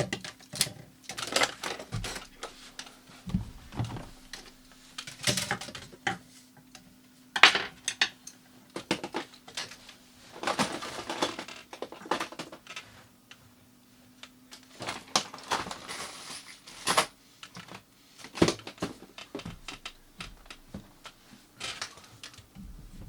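Irregular tapping and rattling, sharp clicks and knocks at uneven intervals, mixed with longer scratching bursts, over a faint steady hum.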